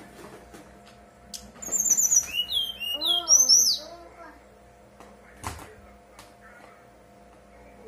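Brown-chested jungle flycatcher (SRDC) singing a burst of about two and a half seconds of clear, fluty whistled notes: very high thin slurs first, then lower whistles that rise and fall. A single knock comes a little after the middle.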